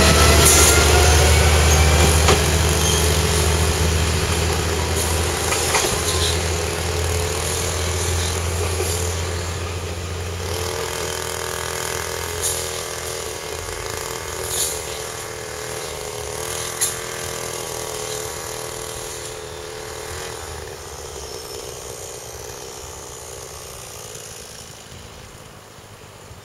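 WA89-series diesel railcar's engine working hard as it pulls away and draws off, fading steadily into the distance. The deep engine hum gives way to a steadier, higher engine note about ten seconds in, with a few sharp clicks partway through.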